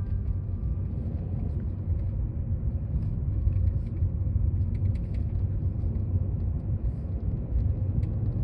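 Steady low rumble with faint scattered ticks, like the road noise of a moving car.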